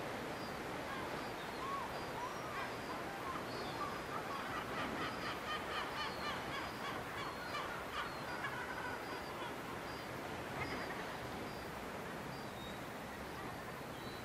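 Birds calling again and again, busiest in the middle with quick runs of short repeated calls, over a steady background noise.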